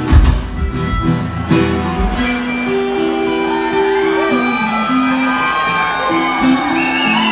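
Live acoustic music: harmonica played into a vocal microphone over a strummed acoustic guitar, holding long notes that step from one pitch to the next. Heavy low thumps fill the first two seconds, then stop.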